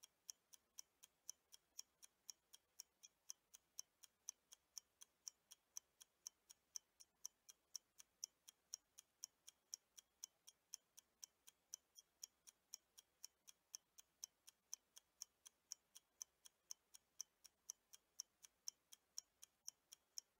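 Faint ticking-clock sound effect running under an on-screen countdown timer, with quick, even ticks alternating louder and softer.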